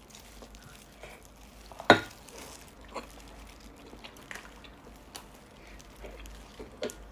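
Eating sounds: a spoon and utensils clicking against a bowl of soup now and then, the sharpest click about two seconds in, with faint sips and chewing between.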